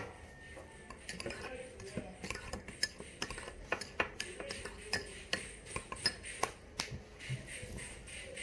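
Light, irregular clicks and taps of small hard objects, two or three a second.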